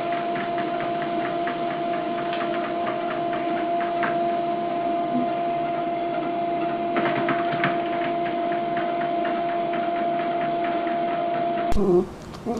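A small machine running with a steady hum and a rapid rattle of ticks; it cuts off abruptly near the end.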